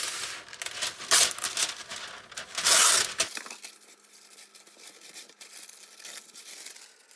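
Parchment paper being pulled off its roll and handled, crinkling and rustling loudly in bursts, the loudest about a second in and just before three seconds. After about three seconds it drops to faint rustling as the sheet is smoothed over the baking sheet.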